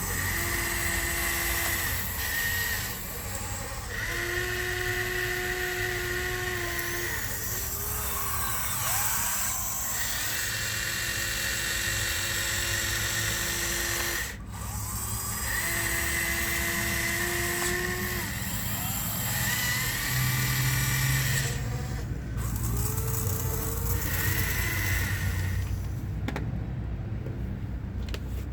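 Small electric motors of radio-controlled construction models whining in repeated runs of one to four seconds, starting and stopping with short glides up and down in pitch, over a steady low rumble.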